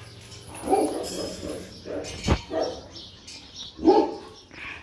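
A dog barking in short calls, about five times, with a single sharp knock about two seconds in.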